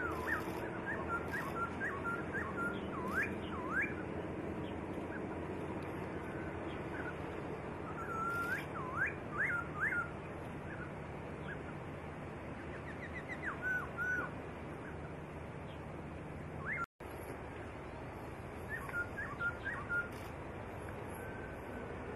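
A songbird singing: bursts of clear, quick whistled notes that sweep up and down, separated by pauses of a few seconds, over a steady low background hum.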